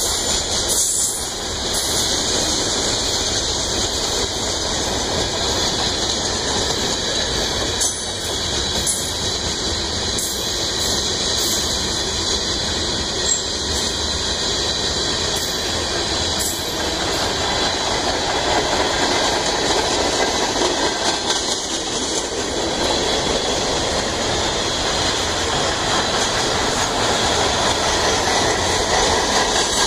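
Train cars rolling past close by: steady rumble and clatter of steel wheels on the rails, with a high-pitched wheel squeal running through it.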